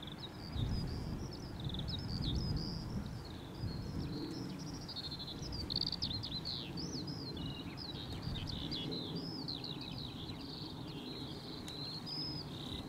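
A songbird singing a long, unbroken run of quick, high chirps and trills, over a low rumble that swells during the first few seconds.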